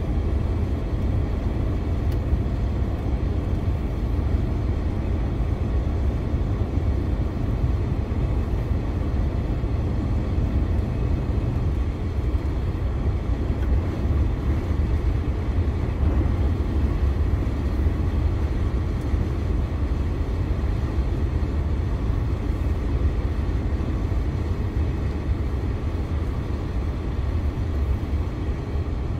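A 2021 DAF CF 480 lorry driving at a steady speed, its six-cylinder diesel engine and road noise making a steady low drone with no gear changes.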